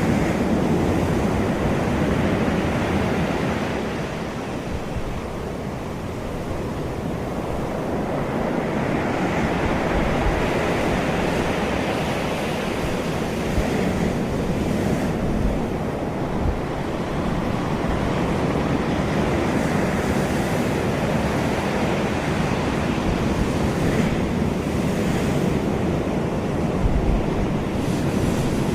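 Sea waves washing and breaking, the surf swelling and easing, with wind rumbling on the microphone.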